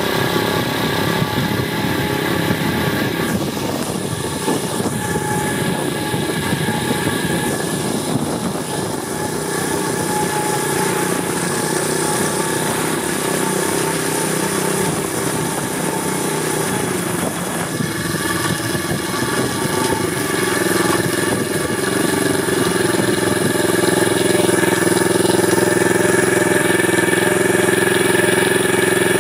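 Apollo 125cc pit bike's single-cylinder four-stroke engine running while the bike is ridden, its note rising and dipping with the throttle. It runs louder and steadier over roughly the last third.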